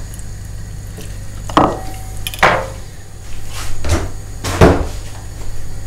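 A handful of sharp knocks and clatters of kitchen things being handled and set down on a wooden worktop, about a second apart, the loudest about two-thirds of the way in.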